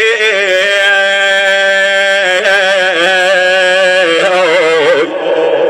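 A man chanting a Shia mourning lament, holding long drawn-out notes with wavering, ornamented turns. His voice drops out briefly about five seconds in.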